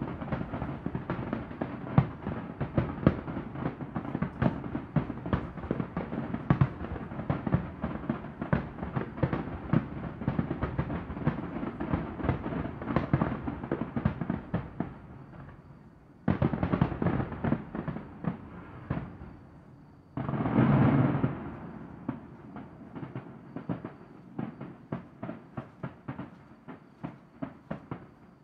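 Aerial fireworks: a rapid, dense run of sharp bangs and crackling from bursting shells. About twenty seconds in there is a louder rumbling burst lasting a second or so, then scattered pops thinning out near the end.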